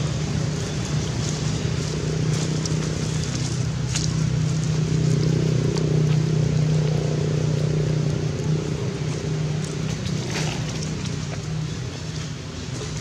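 A steady low engine hum, a little louder in the middle and easing toward the end, with a few faint clicks over it.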